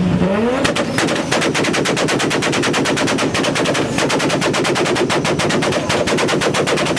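A Nissan's engine revved up and held on a two-step launch-control rev limiter, its exhaust popping in a rapid, steady string of bangs, about ten a second. The engine's rising rev comes first, and the pops start under a second in.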